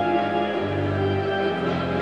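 Background music of long held notes that change pitch every second or so.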